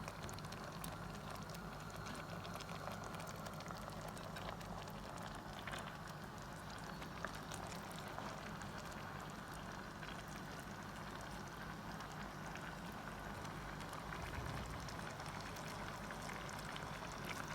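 Coconut milk simmering in a pan with onions, carrots and potatoes over a medium flame: a steady bubbling with many faint crackles.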